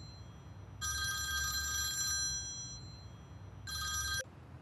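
Mobile phone ringtone ringing in repeated rings of several steady tones: one full ring about a second in, then a second ring near the end that cuts off abruptly after half a second as the call is answered.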